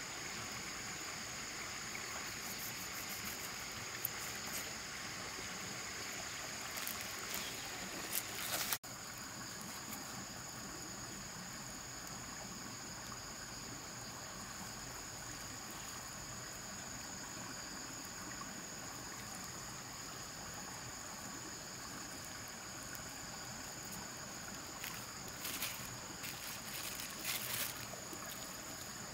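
Stream water running steadily, with a constant thin high-pitched tone over it and a few brief sharper noises about seven seconds in and again near the end.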